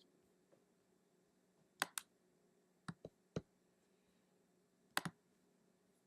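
Computer mouse clicking: a quick double click about two seconds in, three single clicks around three seconds, and another quick double click about five seconds in.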